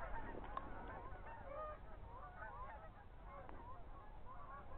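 A flock of geese calling, many short honks overlapping one another.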